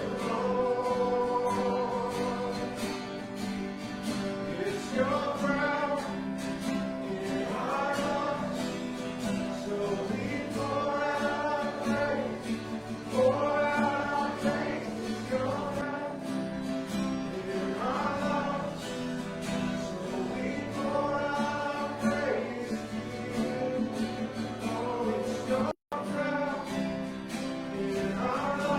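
A group of voices singing a worship song together over an instrumental accompaniment. The sound cuts out for an instant near the end.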